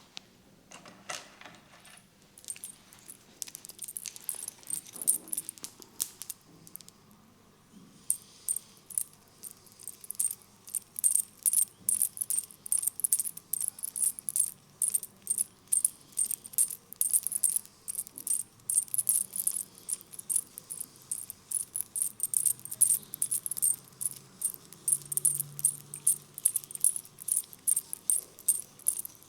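Hands working a head massage: crisp, rapid clicking, jingling and scratching, a few scattered strokes at first. After about eight seconds it settles into a quick rhythm of two or three strokes a second.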